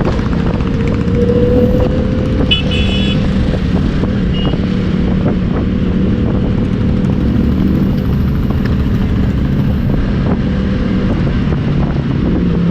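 Motorcycle engine running at a steady cruising speed under a constant drone of road and wind noise. A short vehicle horn beep sounds about two and a half seconds in.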